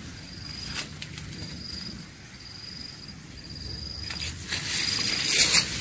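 Rural outdoor ambience with a faint, steady high insect hum, broken by brief rustles and brushing noises of leaves and footsteps as someone moves through the plants. The rustling is loudest and busiest near the end.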